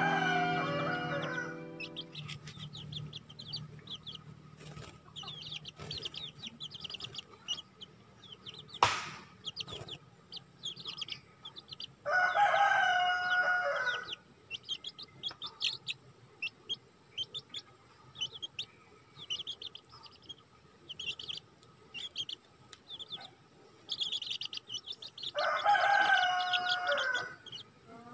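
Chicks peeping continually in short, high calls. A chicken gives two louder drawn-out calls, each about two seconds long, near the middle and near the end, likely a rooster crowing. Music fades out at the start.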